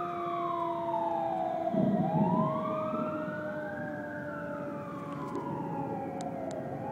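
Emergency siren wailing slowly, its pitch rising and falling over a few seconds, over a steady lower tone; a brief low rumble about two seconds in.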